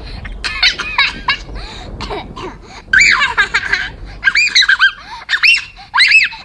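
A girl's high, squeaky voice laughing in character, breaking into a run of short rising-and-falling squeals from about three seconds in.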